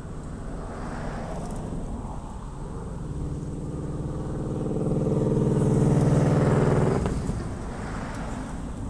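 A motor vehicle passing by: its engine builds over a few seconds, is loudest about six seconds in, then falls away sharply, over steady outdoor road noise.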